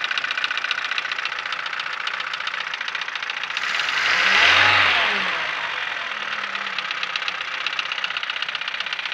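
Car engine running with a rapid, even ticking or tapping from inside the engine, the fault the owner is asking about. It swells louder for a moment about halfway through.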